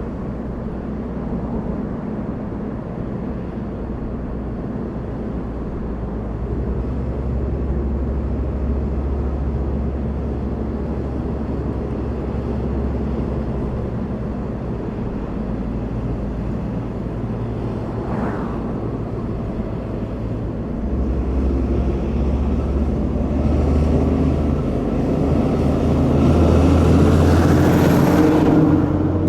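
A car driving on a mountain road: steady engine and tyre noise, growing louder over the last several seconds.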